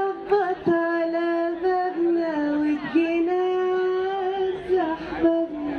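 A woman singing long, drawn-out notes into a microphone, her pitch stepping up or down every second or two.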